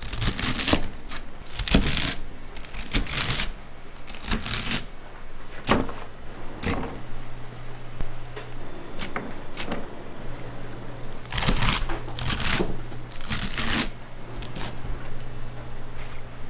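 Irregular clattering and scraping from kitchen work, coming in short bunches, over a steady low hum.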